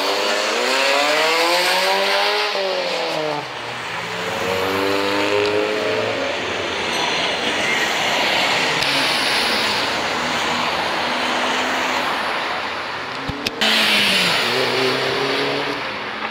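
Car engine revving hard as the car accelerates away, its pitch climbing and dropping between gears, twice in the first six seconds, then running steadily. About three-quarters through comes a sudden loud blast of exhaust noise, followed by another rising and falling rev.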